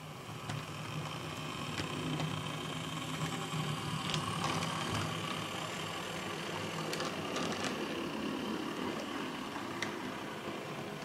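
H0-scale model of a CD Cargo class 750 diesel locomotive running on the layout track, giving a steady engine-like drone that grows louder over the first couple of seconds as it approaches. A few sharp clicks sound over it.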